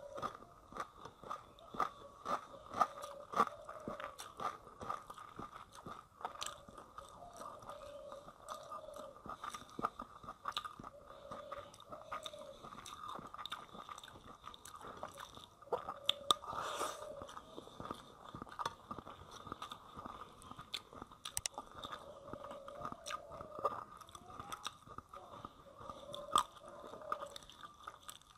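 Close-up chewing and biting: a person eating rice with fish curry by hand, with wet mouth sounds and irregular small crunches.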